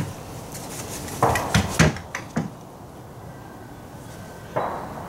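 Hand tools knocking and clattering against wooden boards as they are handled. There is a quick cluster of knocks a little over a second in, one more shortly after, and a single knock near the end.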